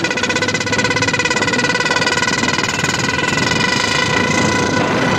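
Royal Enfield Bullet single-cylinder motorcycle running with loud horns fitted to its exhaust, giving a steady blaring horn tone over the engine's rapid pulsing.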